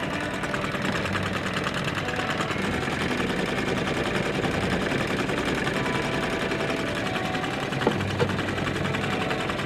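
Small Yamaha 2 hp two-stroke outboard motor running steadily with a fast, even buzz. Two short knocks sound near the end.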